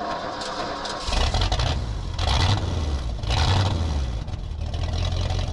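Backhoe engine running, getting louder about a second in, with a few surges.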